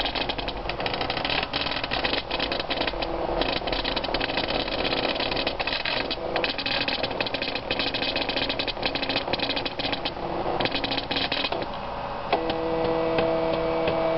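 Motors and gear train of an Arduino pen plotter built from an old printer's mechanism, driving the pen over the paper as it draws: a rapid clattering buzz full of small clicks, broken by a few short pauses. Near the end it settles into a steady hum with a few even tones.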